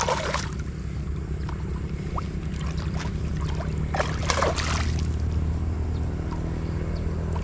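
A hooked tilapia splashing and thrashing at the water's surface as it is drawn in to the landing net. The splashes are loudest at the start and again about four seconds in, over a steady low motor hum.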